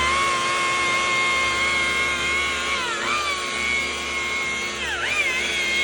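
Electric power tool spinning a polishing pad on a headlight lens, applying glaze. Its steady high motor whine dips briefly in pitch and recovers, about three seconds in and again near the end, as the pad is pressed and loaded.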